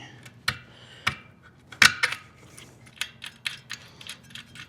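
Light metallic clicks and knocks of hand tools and parts being handled on a bicycle wheel: a few separate knocks, the loudest about two seconds in, then a steady run of light clicks, about four a second, in the second half.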